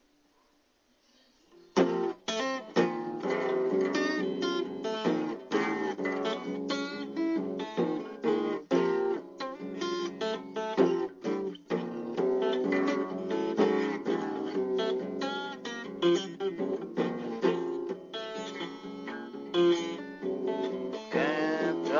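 Instrumental acoustic guitar music with quickly picked notes, starting suddenly about two seconds in after near silence.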